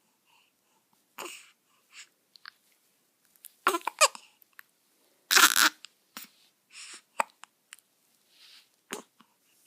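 Short, sharp hiccups repeating every second or so, with two louder, longer voiced cries about four and five and a half seconds in.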